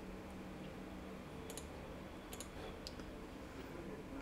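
A few faint, sharp clicks at a computer, about five scattered through the middle, two of them in quick succession, over a faint steady low hum.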